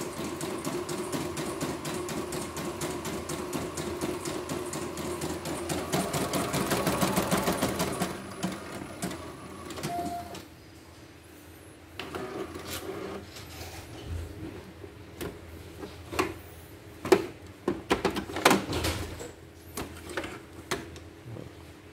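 CNY computerized embroidery machine stitching, freshly fitted with a new needle-bar bracket: rapid, even needle strokes over a steady motor hum for about eight seconds, then slowing and stopping, with a short beep about ten seconds in. Later come scattered clicks and knocks as the embroidered fabric and hoop are handled.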